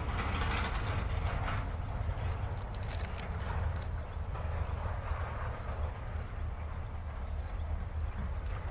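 Outdoor ambience: a steady low rumble of wind on the phone microphone, with a thin high steady tone above it and a few faint clicks about three seconds in.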